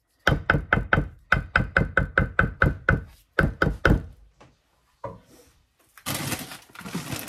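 A spatula rapped over and over against a metal baking pan to knock casserole mix off it: quick sharp clacks, about four or five a second, for three or four seconds with a short break. Near the end a potato chip bag starts crinkling as it is opened.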